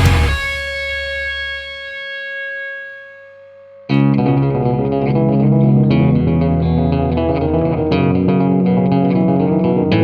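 Background rock music with electric guitar: a held chord rings and fades away, then the full band comes back in suddenly about four seconds in.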